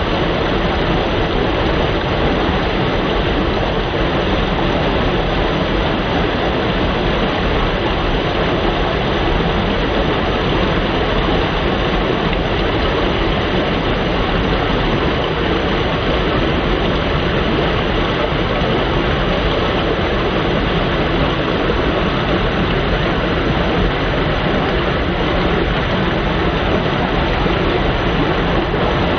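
Waterfall: a steady, loud rush of falling water with no let-up.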